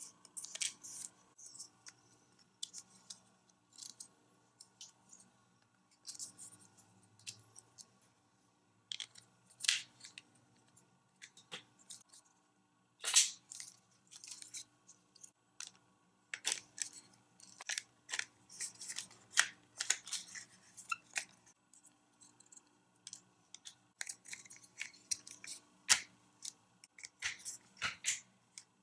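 Hard plastic parts of a Hot Wheels Auto Dealership playset being handled and fitted together: irregular clicks, taps and scrapes, with several louder snaps.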